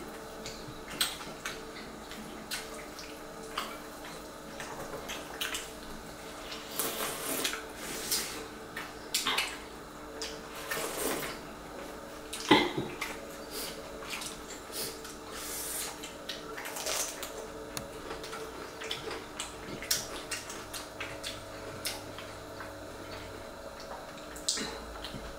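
Close-up eating sounds: wet chewing and lip smacks, fingers working rice on ceramic plates, and gundruk soup sipped from a bowl, with a sharp knock about twelve seconds in. A faint steady hum lies underneath.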